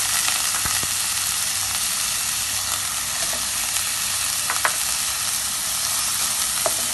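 Minced garlic and thinly sliced pork belly frying in hot oil in a nonstick pan, a steady sizzling hiss, stirred with a wooden spatula. A few short taps come in the second half.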